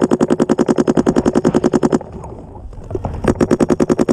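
Paintball marker firing a rapid, evenly spaced string of shots, more than ten a second, that stops about two seconds in; a second, shorter string follows about a second later.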